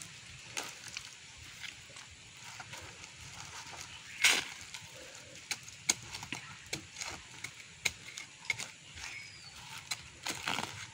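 Hands working loose soil in a woven sack and a machete-like knife cutting ginger stalks and roots: scattered rustles, scrapes and clicks, with one louder sharp click about four seconds in.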